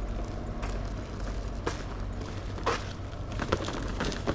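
Footsteps on a dirt road, a scatter of short crunches and knocks that come closer together in the second half, over a steady low outdoor rumble.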